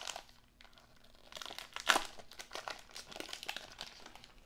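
Trading card pack's waxed-paper wrapper crinkling and tearing as it is peeled open by hand, in irregular crackly bursts, the loudest about two seconds in.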